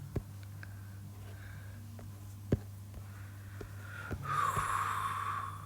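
A person breathes out noisily for a little over a second, starting about four seconds in, over a low steady hum. A few light taps sound before it.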